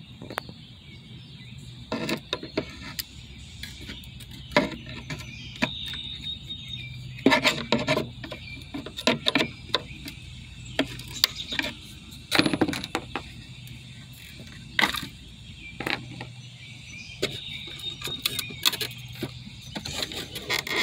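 Irregular plastic clicks, taps and scrapes as a plastic pry tool works a 2004 Dodge Durango's tail light assembly loose from the body, over a low steady hum.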